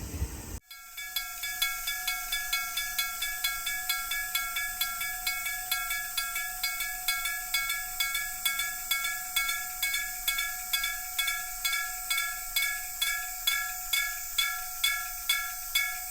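Electric bell of a Japanese railway level crossing ringing as a warning: a steady train of metallic strikes, about two to three a second, each ringing out before the next. It starts abruptly about half a second in.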